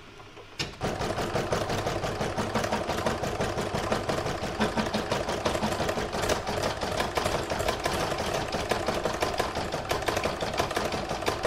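Computerised embroidery machine stitching out a colour of an in-the-hoop design through fabric, felt and stabiliser: a rapid, steady needle clatter that starts a little under a second in.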